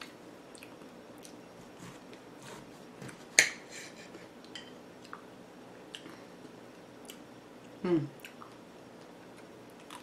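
Scattered small clicks and cracks of a hard chocolate coating being broken off a strawberry and a table knife touching the plate. The loudest is a sharp crack about three and a half seconds in, and a brief falling squeak comes near the end.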